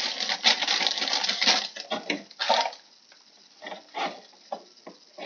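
Clear plastic bag and packaging crinkling and rustling as they are handled, dense for about the first two and a half seconds, then a few scattered crackles.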